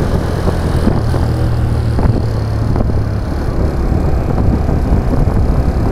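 Motorcycle engine running steadily while riding, with a low hum and wind rushing over the microphone.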